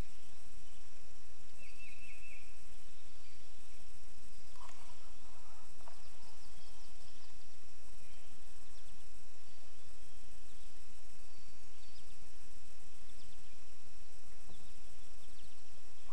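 A few faint bird chirps over a steady low rumble and hiss of open-air background noise.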